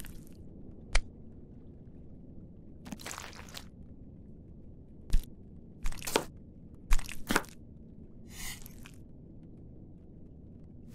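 Kitchen knife cutting down onto a wooden cutting board: one sharp knock about a second in, then a cluster of knocks about five to seven and a half seconds in, with a couple of softer swishes between them.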